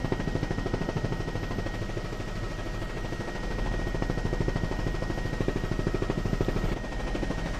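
Helicopter rotor chopping in rapid, steady pulses, with a faint steady high whine.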